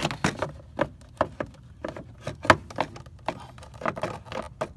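Irregular plastic clicks and knocks as a Honda CR-V's air filter housing and intake duct are worked loose and pulled out by hand, with sharper knocks at the very start and about two and a half seconds in.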